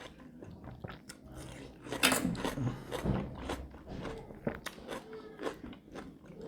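Close-up eating sounds: food being bitten and chewed, with short crunches and mouth clicks, the loudest bite about two seconds in.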